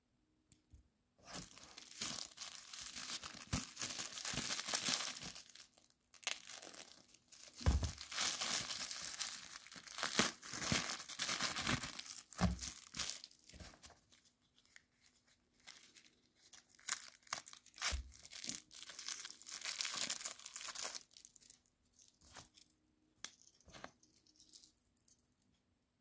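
Plastic packaging being torn open and crinkled by hand, in rustling spells with short pauses between them, with a few dull knocks along the way.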